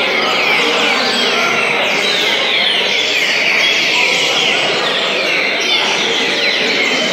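Many caged songbirds, trinca-ferros (green-winged saltators) among them, singing at once: a dense, overlapping chorus of quick whistled notes that never lets up.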